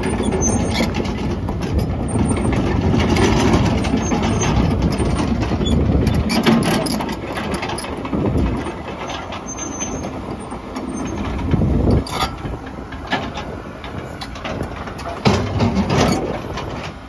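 Caterpillar 312F GC excavator's diesel engine running under load as the machine travels on its steel tracks, loudest in the first half. Near the end come several sharp knocks as the bucket works into a pile of broken concrete rubble.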